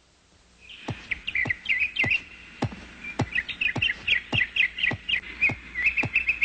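Cartoon soundtrack: quick bird-like chirping tweets over a regular ticking beat of about two clicks a second, starting about a second in.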